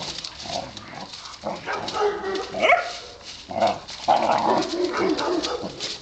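Two Fila Brasileiro puppies play-fighting, with short barks and yips and a rising yelp about two and a half seconds in, over a steady crackle of dry leaves trampled underfoot.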